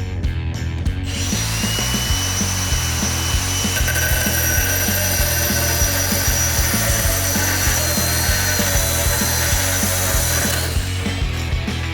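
Angle grinder fitted with an SPX M14 tile drill bit, running and drilling into tile: a steady high whine with grinding noise that starts about a second in and stops shortly before the end. Background music with a steady beat plays throughout.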